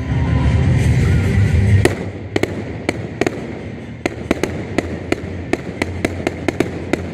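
Fireworks display: a deep, loud rumble for about the first two seconds, then a long string of sharp cracks and pops, a few each second, from crackling shells.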